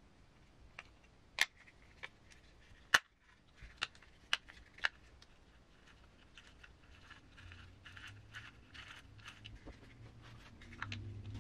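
Small hard parts and tools handled on a work surface while RC crawler transmission parts are put together: a few sharp clicks and taps in the first five seconds, then softer small clicks and rustling.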